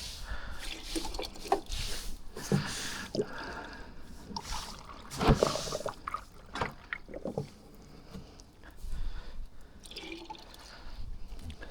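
Liquid pouring and dripping, with scattered knocks and clatters; the loudest knock comes about five seconds in.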